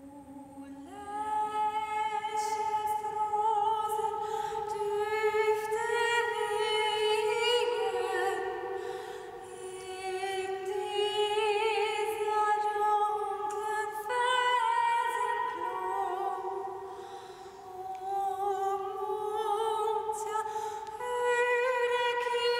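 Women's voices humming long, wordless notes in harmony, each pitch held for a few seconds before moving on, with the lines moving apart and together.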